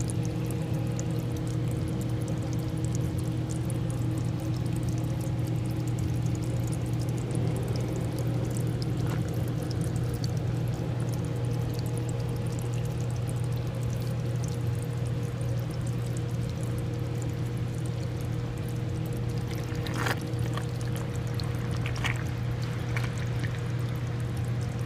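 Liquid boiling vigorously in a steady, continuous bubbling churn over a low, constant hum, with a few sharp clicks or pops near the end.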